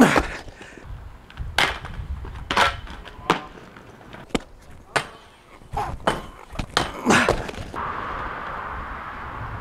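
Inline skates on concrete: a run of sharp clacks and knocks from hard wheels and frames striking and landing, about a dozen in seven seconds. About eight seconds in they give way to a steady rushing noise.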